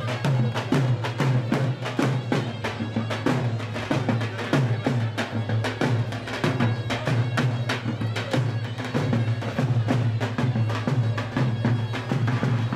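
Loud traditional Turkish dance music: a steady, regular drum beat under a reedy, shrill wind-instrument melody.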